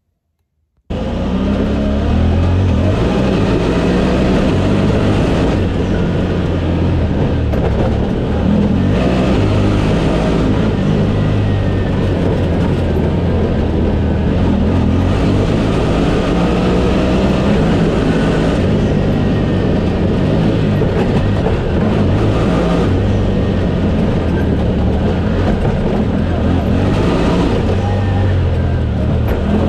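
Honda Talon side-by-side heard from on board while driving a dirt trail: the engine runs steadily under load, its pitch rising and falling with the throttle over road noise. It starts about a second in.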